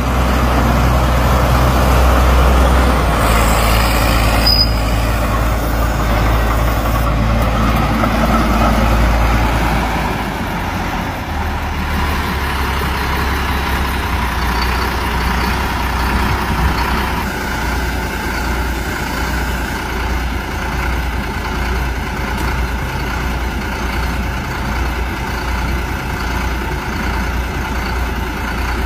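Engine of a modified crawler tractor running steadily with a deep, low rumble. A hiss comes in a few seconds in, and the engine gets quieter after about ten seconds.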